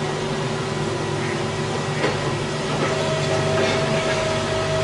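Liebherr tracked excavator running steadily while demolishing a building, a constant engine and hydraulic drone; a higher steady whine joins about three seconds in as it works, and a knock of debris sounds about two seconds in.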